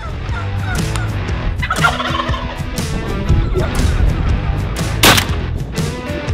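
Wild turkeys gobbling and calling in rapid rattling bursts, with a sharp, loud noise burst about five seconds in.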